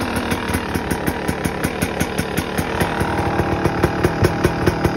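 Two-stroke dirt bike engine idling shortly after start-up while it warms up, a steady rapid beat.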